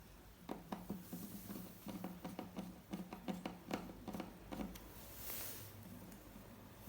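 A quick, irregular run of small clicks and taps from plastic laptop parts and screws being handled and fitted while an HP ProBook 4520s is put back together. The clicks stop a little before five seconds in.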